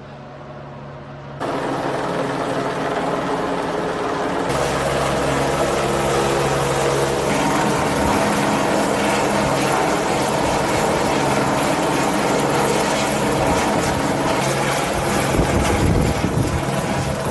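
Rescue helicopter's rotor and engine running overhead in a loud, steady drone. It is faint at first, then cuts in much louder about a second and a half in.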